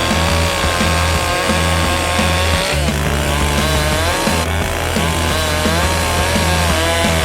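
Castor CS598 two-stroke gasoline chainsaw running under load as it cuts, its engine pitch wavering up and down.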